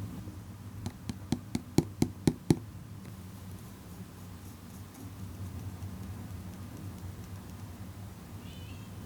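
A quick run of about eight sharp, light taps of a hard object, the later ones loudest, over a steady low hum.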